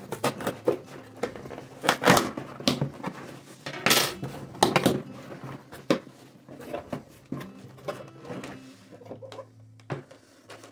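A cardboard shipping box being opened by hand: packing tape ripped and the flaps pulled open, then packaged items lifted out and set on the table, a run of sharp rustling and scraping noises. The loudest rips come about two seconds in and again around four to five seconds.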